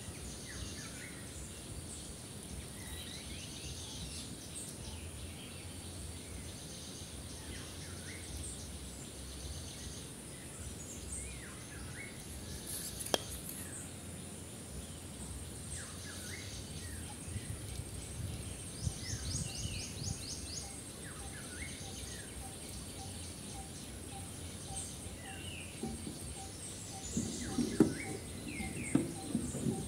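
Garden ambience: small birds chirping and trilling again and again over a steady high insect drone. A few louder knocks come near the end.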